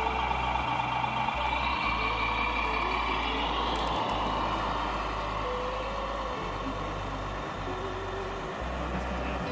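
Radio-controlled model truck running, a steady mechanical drone with a high whine that fades away about halfway through.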